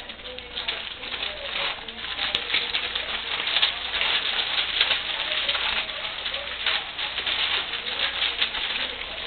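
A litter of English Springer Spaniel puppies feeding together: a dense, continuous clatter of small clicks and crackles, with occasional short faint squeaks.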